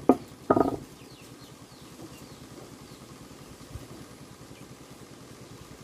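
A small engine running steadily and faintly, with a sharp knock right at the start and a short, louder sound about half a second in.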